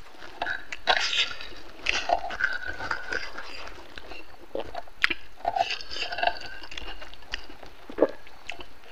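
Close-up eating sounds: rice and pork curry being chewed with the mouth open, with irregular wet smacks and clicks.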